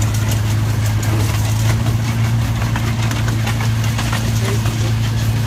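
Miniature train locomotive's engine running steadily as the train travels along the track: a low, even drone, with faint clicking from the wheels on the rails.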